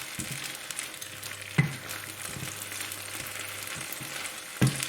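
Onions with garlic and ginger paste sizzling in a hot pan as they are stirred. Two sharp knocks, likely the spoon against the pan, come about a second and a half in and near the end.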